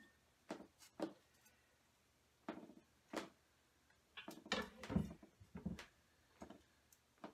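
Scattered knocks and clatters of a chef's knife and hands on a wooden butcher-block cutting board, with a quick cluster of thumps about two-thirds of the way through.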